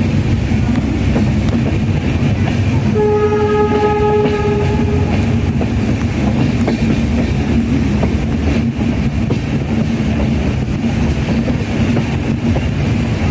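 Train running with a loud, steady rumble from wheels and track. About three seconds in, the horn sounds one steady tone for about two seconds.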